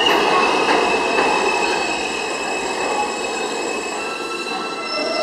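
R160B subway train rolling in alongside the platform and slowing, its wheels and running gear rumbling under a steady high-pitched tone. The noise eases slightly as the train slows.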